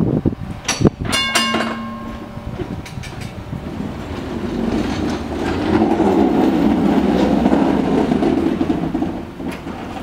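Electric tram moving along its rails, its wheels and running gear rumbling louder as it passes close and easing off near the end. A few knocks and a brief ringing tone come in the first couple of seconds.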